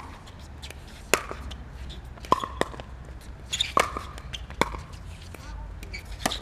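A pickleball rally: paddles striking the hollow plastic ball with sharp pops, mixed with a bounce or two on the court, about six in all, roughly a second apart.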